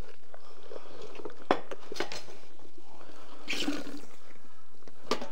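Wet handling sounds of a large silver carp being gutted, its innards and roe worked by hand, with a few sharp knocks.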